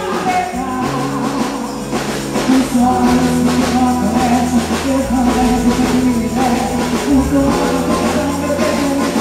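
Quadrilha junina dance music: a sung melody over held bass notes and a steady percussion beat.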